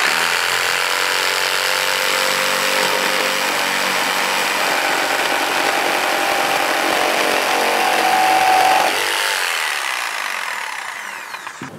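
Corded jigsaw cutting through a fir beam about 10 cm thick: a loud, steady sawing rasp with the motor's hum. About nine seconds in the cut finishes and the sound drops away and fades.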